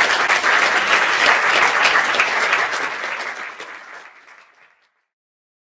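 Audience applauding, a dense patter of many hands clapping that fades away about four to five seconds in.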